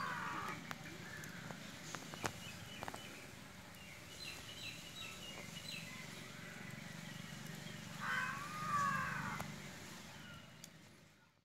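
Birds calling, in two short bursts: one right at the start and another about eight seconds in, with faint chirps between. Beneath them runs a steady low hum with a few faint clicks, and everything fades out near the end.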